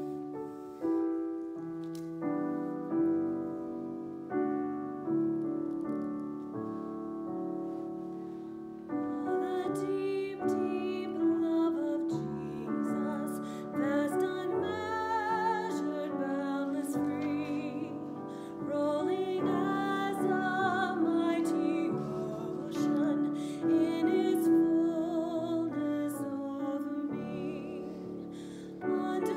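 A piano plays an introduction of slow, ringing chords. About nine seconds in, a woman starts singing solo with vibrato, with the piano accompanying her.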